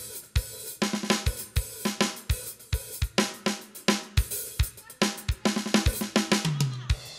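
Live party-band music with no singing, led by a drum kit: bass drum, snare, hi-hat and cymbals keep a fast, steady beat of about two to three strokes a second. A low note slides down near the end.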